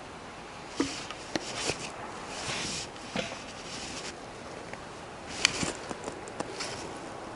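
Room of people working quietly at tables: paper rustling and shuffling, with scattered small clicks and knocks, the sharpest about a second in and again past the middle.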